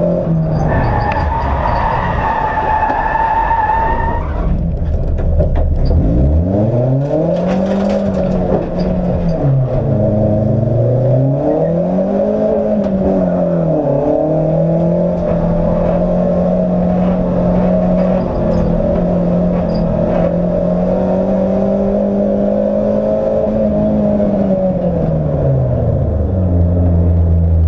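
Opel Corsa race car's engine heard from inside the cabin on track. Its pitch climbs and falls twice through gear changes, holds steady at high revs, then drops away near the end. A high whine sounds over it for the first few seconds.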